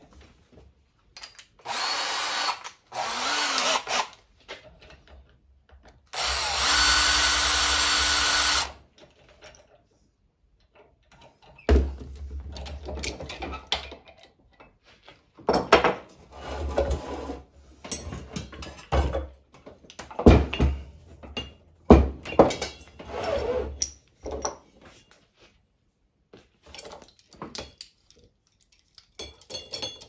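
A handheld power tool, such as a cordless drill, runs in two short bursts, then steadily for about two and a half seconds. After that come irregular knocks and clatter of metal tools being handled on a workbench.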